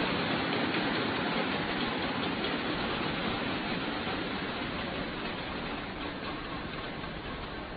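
Arena crowd noise, a steady wash of cheering and clapping that slowly dies down after a point.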